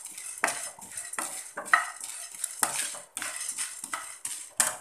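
A wooden spatula stirs roasting split chana dal and garlic in a nonstick frying pan. The dry lentils scrape and rattle across the pan in quick repeated strokes, about two or three a second.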